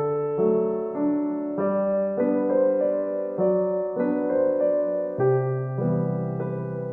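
Soft piano music: a slow, gentle melody with sustained chords, a new note or chord about every half-second.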